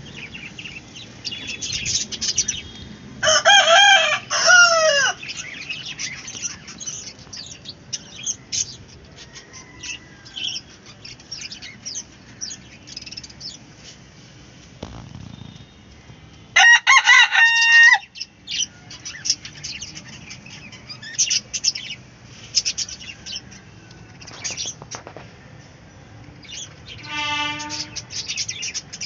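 A flock of Indian country chickens (nattu koli) calling: constant clucking and small cheeping, with a rooster crowing loudly twice, about three seconds in and again around seventeen seconds in. Another long, lower call comes near the end.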